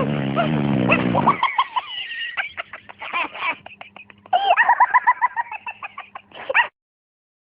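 Chicken cackling in rapid runs of short, pitch-arching calls, with a low drawn-out sound under the first second and a half. It cuts off abruptly near the end.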